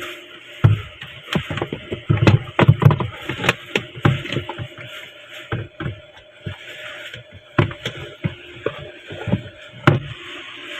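Irregular knocks and clatter of hard objects being handled or struck, some with a heavy thud, at uneven intervals.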